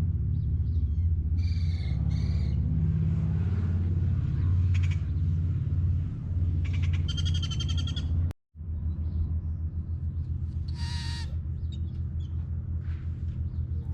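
Bird calls: a few short, high calls, a rapid trill near the middle and another call later, over a steady low rumble.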